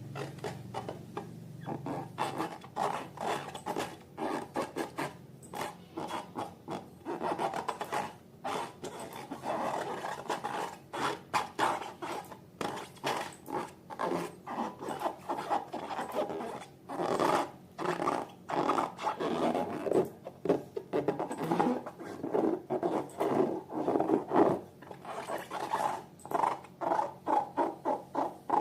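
Slime being squeezed and kneaded by hand: rapid, irregular squelching pulses, several a second, throughout.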